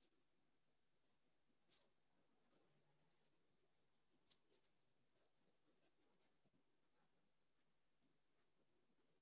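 Near silence broken by about a dozen faint, irregular scratchy ticks and rustles, the handling noise of a phone carried by hand through a room.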